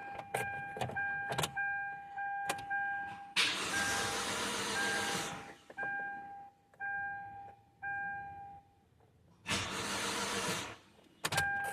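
2016 Hyundai Elantra's dashboard warning chime dinging over and over, with a few clicks. Twice the starter cranks the engine, for about two seconds and then just over a second, and the engine does not catch: a crank-but-no-start fault.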